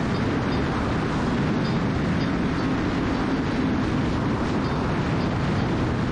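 A 2020 Yamaha R6's 599 cc inline-four, fitted with an Akrapovič full exhaust, running steadily at highway speed, around 140 km/h. Wind rushes over the bike-mounted camera's microphone.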